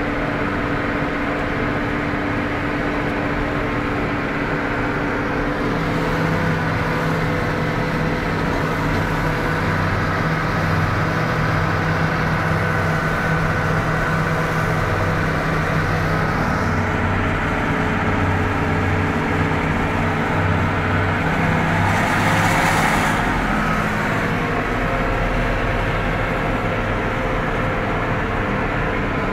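New Holland TM150 tractor's diesel engine running steadily as the tractor drives, heard from inside the cab; the engine note shifts slightly about six seconds in. A brief hiss about three quarters of the way through.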